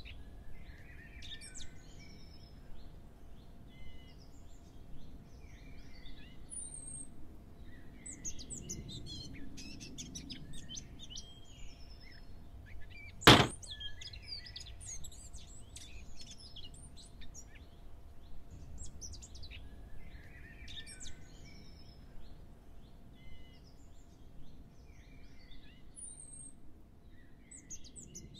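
Small birds chirping and trilling in short, scattered calls over a faint steady hum and low background noise. About halfway through comes a single sharp click, the loudest sound.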